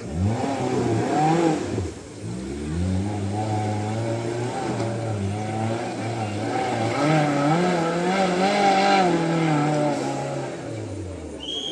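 Maruti Suzuki Gypsy's engine revving hard under load as it climbs a steep mud slope. The revs rise sharply at the start and dip briefly about two seconds in. They are then held high with a wavering pitch and fall away near the end.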